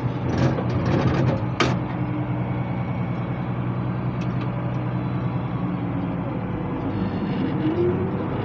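International 886 tractor's diesel engine running steadily under load while baling hay. There is a sharp click about a second and a half in, and a tone that rises in pitch near the end.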